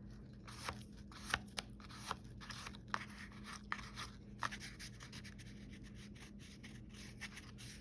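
Faint handling of a cardstock waterfall card: scattered light clicks and rustles of paper being worked by hand, over a steady low hum.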